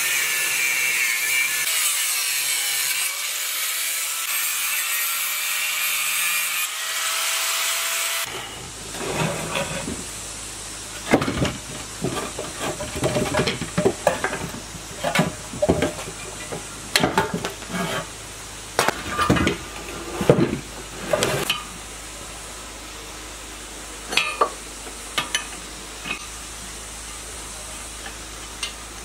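Angle grinder cutting into the rusted metal housing of an old water-turbine generator, a steady grind that stops about eight seconds in. Then come irregular metal clanks and knocks as the generator is taken apart, thinning out toward the end.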